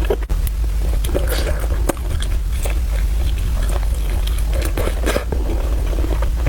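Close-miked eating sounds of someone chewing spicy fried rice noodles: irregular wet smacks and mouth clicks over a steady low hum.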